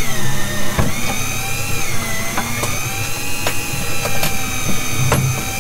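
A motor running with a steady whine whose pitch sags and rises slowly, over a low hum, with several sharp knocks scattered through.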